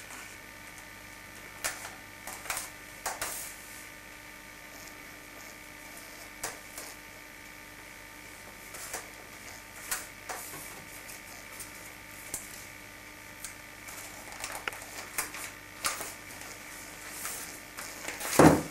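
Gift-wrapping paper crinkling and rustling in short, scattered bursts as a wrapped package is handled, with a louder thump near the end.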